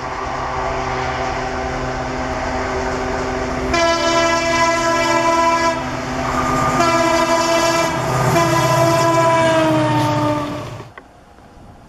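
Indian Railways diesel locomotive approaching with its engine rumbling, then sounding its horn in two long blasts, the second dropping in pitch as the locomotive passes close by. The sound cuts off suddenly near the end.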